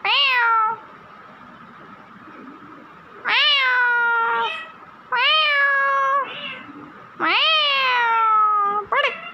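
Rose-ringed parakeet mimicking a cat's meow: four long meows, each rising and then sliding down in pitch, and a short one near the end.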